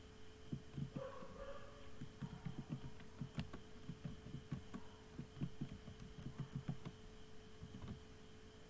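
Faint, irregular computer keyboard keystrokes, heard as dull low thumps while a line of text is typed, over a steady electrical hum.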